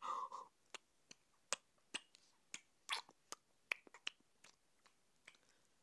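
A short breathy gasp, then a dozen or more quiet, sharp clicks at irregular intervals.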